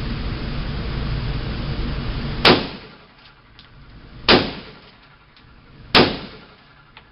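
Three gunshots in fairly quick succession, under two seconds apart, each followed by a short ringing echo: the last three of a five-round string fired faster. Before the first shot there is a steady rushing noise.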